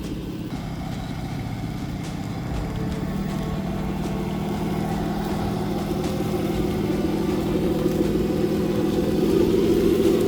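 1/10-scale RC crawler's electric motor and geartrain whining steadily, growing louder as it drives closer.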